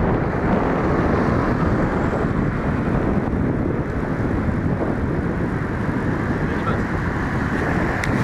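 Steady wind rushing over the microphone of a camera on a moving vehicle, blended with the vehicle's low running and road noise.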